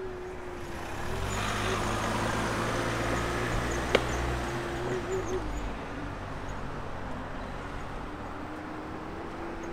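A car driving past on the street: its engine and tyre noise swells about a second in and fades a few seconds later. There is one sharp click about four seconds in, over a steady hum.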